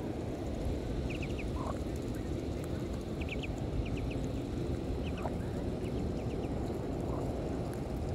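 Muscovy ducklings peeping in short quick runs of two or three notes, several times, over a steady low background noise.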